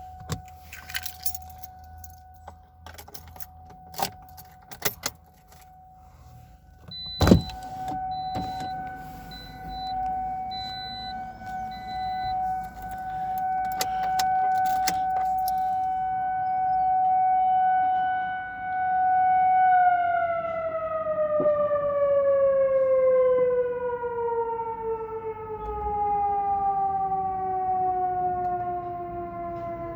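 Outdoor tornado warning siren sounding a steady wail during a test, swelling and fading in level, then winding down with a long falling pitch for its last ten seconds. A few knocks come early, with one loud thump about seven seconds in.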